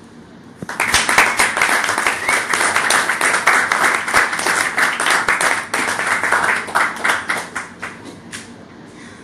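A small audience applauding the end of a poem. The applause starts about a second in, holds for several seconds, and then thins to a few scattered claps near the end.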